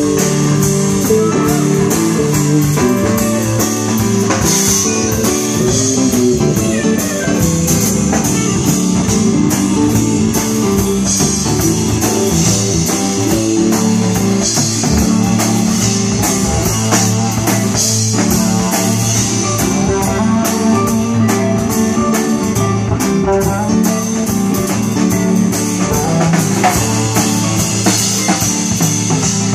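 Live band playing an instrumental passage with electric guitar, bass guitar, keyboard and drum kit over a steady beat, without singing.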